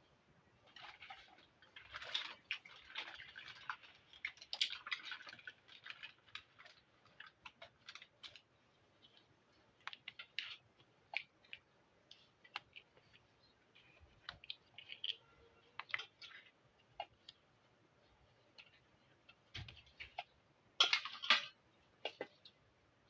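Small plastic toy kitchen pieces being handled, with light clicks and taps scattered throughout. There is a stretch of rustling and scraping from about one to six seconds in, and a louder cluster of clicks near the end.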